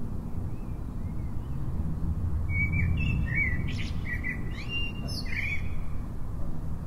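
A bird chirping: a quick run of short twittering calls with fast pitch slides, from about two and a half seconds in until near six seconds, over a steady low background rumble.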